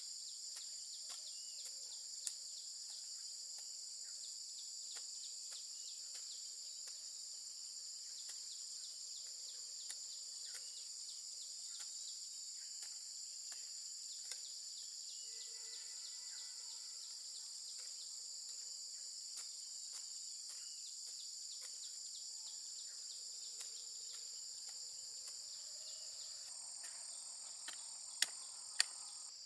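Steady high-pitched insect chorus, with scattered faint clicks and two sharp clicks near the end.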